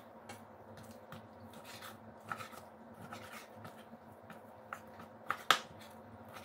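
Chef's knife slicing raw chicken breast fillet on a wooden cutting board: irregular soft taps of the blade striking the board, with a few sharper knocks, the loudest about five and a half seconds in.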